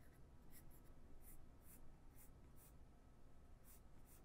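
Faint scratching of a drawing tool making about eight short sketch strokes, spread through an otherwise near-silent room.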